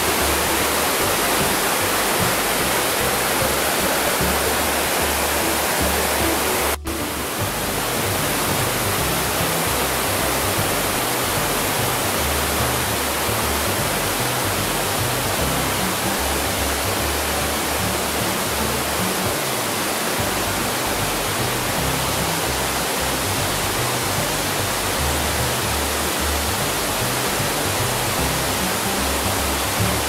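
Steady rushing of a waterfall, with music underneath; the sound drops out briefly about seven seconds in.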